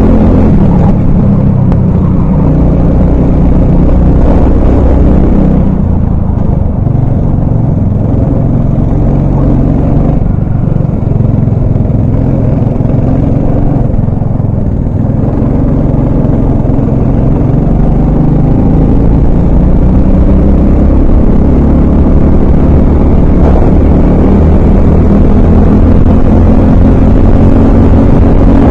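Honda 390 cc single-cylinder four-stroke kart engine heard from the driver's seat at racing speed. The engine note rises and falls as the throttle is opened on the straights and lifted for the corners.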